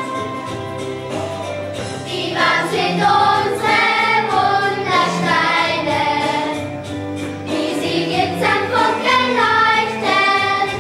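A group of children singing a song together over an instrumental accompaniment. The accompaniment plays alone at first, and the voices come in about two seconds in.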